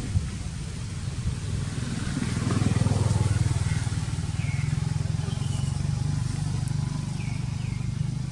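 A motor engine running steadily off-camera, getting louder about two seconds in, with a few short high falling chirps over it.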